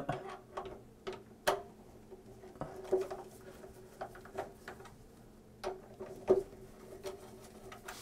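Scattered small metallic clicks and scrapes of a screwdriver loosening the wire-lead terminal screws on an electric water heater's upper heating element, over a faint steady hum.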